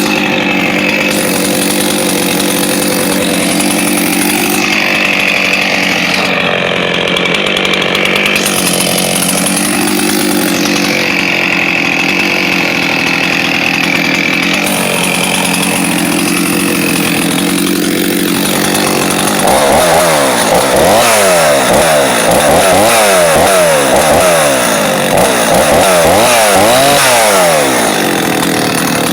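Solo 645 two-stroke chainsaw running at high speed for most of the time, its pitch dipping and recovering slowly every few seconds. Near the end it revs up and down rapidly, over and over.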